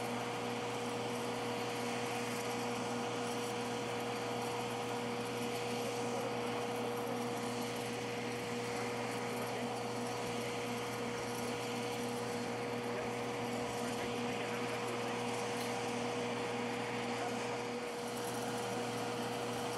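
Steady machinery hum with a constant mid-pitched tone and a noisy background, unchanging throughout.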